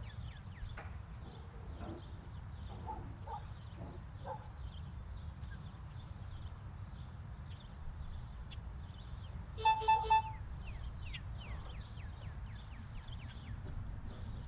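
Mobile phone giving three quick loud beeps about ten seconds in. Under it run a low steady hum and short high chirps, several a second.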